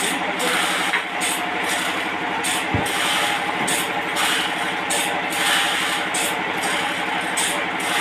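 Sawmill running as its blade cuts through a trembesi (rain tree) log: a steady motor hum under the rasping hiss of the cut, the hiss swelling and fading every second or so.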